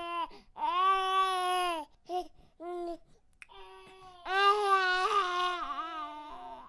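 Baby crying: a held wail about a second in, two short cries around two to three seconds, then a louder, wavering wail from about four seconds that trails off near the end.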